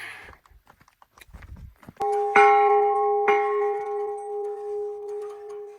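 A metal bell struck about two seconds in and twice more within the next second and a half, ringing on at one steady pitch that slowly fades. Faint clicks and steps come before it.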